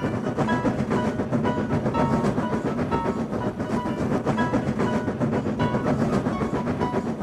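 Animated train running, its wheels clattering steadily on the rails, over background music with a melody of short notes.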